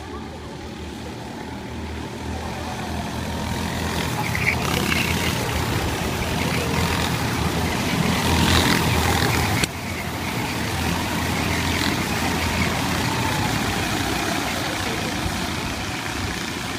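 A pack of rental go-karts racing past with their small engines buzzing. The sound grows louder as the karts near the camera, is loudest a little past the middle, then drops suddenly and carries on at a steady level.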